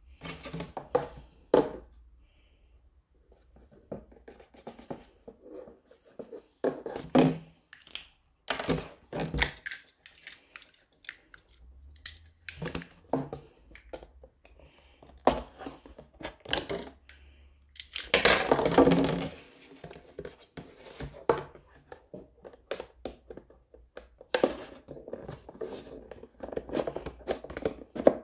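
A thin clear plastic jug being cut open with a utility knife and kitchen scissors: irregular crackling and crinkling of the plastic, blades snipping and scraping through it, and knocks of the jug against the tabletop. About two-thirds of the way in comes a longer, louder burst of crackling lasting about a second.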